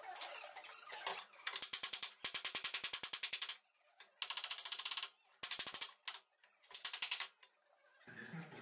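Rapid light hammer taps on the steel front frame rail of a Subaru Impreza, about ten a second, in five quick runs with short pauses between them. This is planishing out a crease in the damaged rail.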